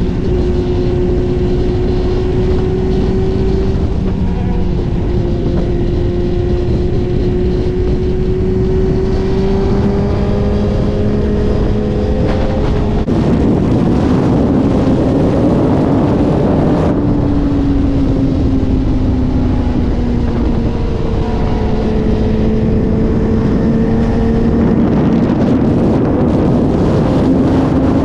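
Suzuki GSX-R1000 inline-four engine running at highway speed under load, with wind and road rush. The engine pitch climbs slowly, drops suddenly about two-thirds of the way through, then climbs again.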